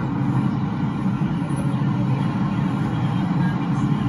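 MTR M-Train electric metro train heard from inside the car while running: a loud, steady low rumble of wheels on rail and running gear.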